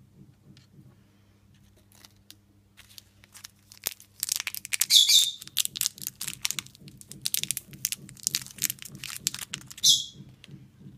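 Thin clear plastic bag crinkling as fingers tear it open and pull it off a small toy figurine, with louder rips about halfway through and near the end.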